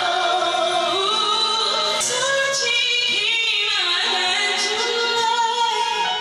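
Music with a woman singing the melody over an accompanying track.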